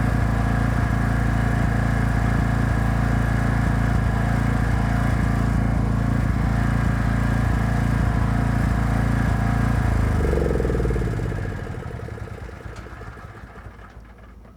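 Engine-driven welding generator running at a steady speed, then switched off about ten seconds in, its engine note falling in pitch as it winds down to a stop.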